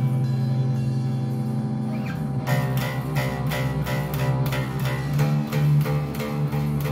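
Electric bass guitar playing a riff in sustained low notes. About two and a half seconds in, a steady run of sharp hits comes in, about three to four a second.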